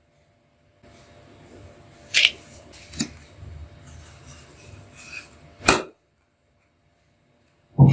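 A few short, sharp knocks over faint low background noise: three about a second or more apart, then another near the end after a stretch of silence.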